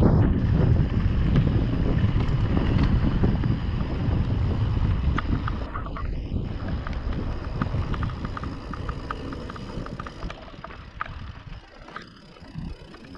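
Wind rumbling on the microphone of a moving mountain bike, easing in the second half, with a run of quick, even ticks from the bike in the middle.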